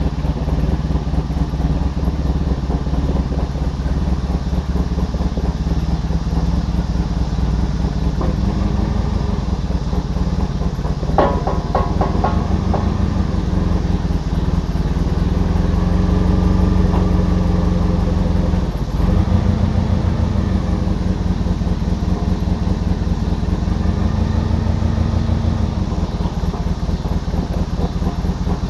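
Forklift engine running while carrying a strapped-up engine on its forks, its pitch rising and falling a few times as it moves. A brief metallic rattle about eleven seconds in.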